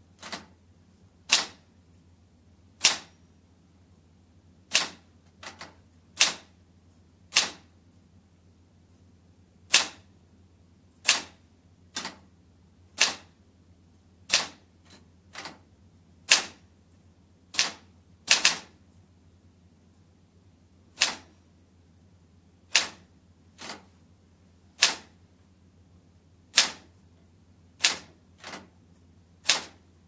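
Manual typewriter typed slowly with two fingers, heard from about four metres away: single sharp key strikes at an uneven pace of roughly one a second, now and then two in quick succession.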